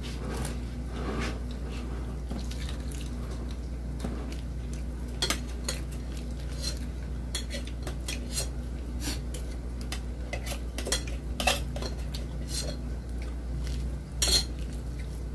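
Scattered sharp clinks and taps of plates and utensils as people eat a meal at a table, the loudest near the end, over a steady low hum.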